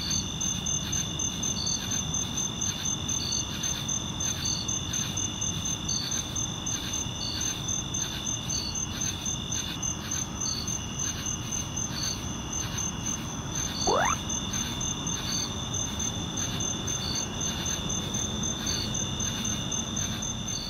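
Night chorus of crickets: a steady high trill, with another insect chirping in regular pulses a little more than once a second, over a low background rumble. About fourteen seconds in, a single short call sweeps up in pitch.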